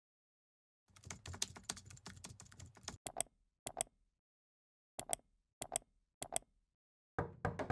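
Typing on a computer keyboard: a quick run of keystrokes, then keys tapped in separate pairs. Near the end comes a louder cluster of knocks.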